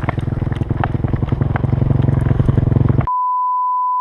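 Dirt bike engine running with rapid firing pulses, getting louder over the first three seconds. About three seconds in it cuts off abruptly and a steady high beep tone takes over for the last second.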